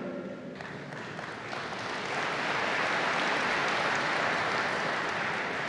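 Large audience applauding, the clapping building up over the first two seconds and then holding steady.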